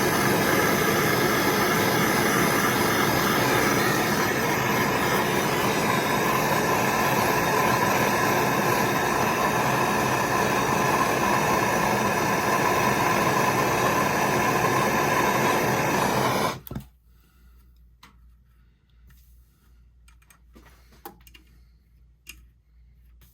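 Gas soldering torch burning with a steady, loud hiss while heating the angle valve's soldered joint; it shuts off abruptly about 17 seconds in, followed by a few faint clicks.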